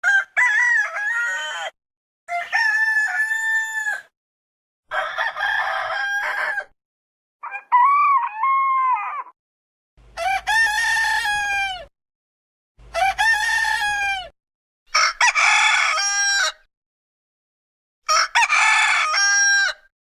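Rooster crowing, eight separate cock-a-doodle-doos one after another, each about two seconds long with a clean silent gap between them, as in a string of edited sound-effect recordings.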